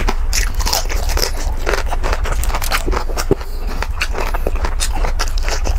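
Close-up crunching and crackling of crispy pata, the deep-fried pork knuckle's crisp skin, as it is pulled apart by hand and chewed: a dense run of quick crunches.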